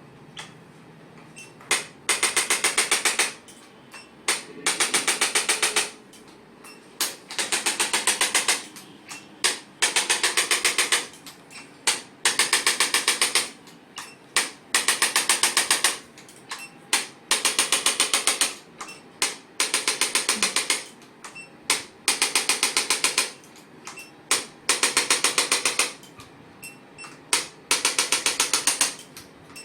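Handheld chiropractic percussion adjusting instrument worked along the spine, firing over a dozen bursts of rapid machine-gun clicking, each about a second long, with short pauses between them.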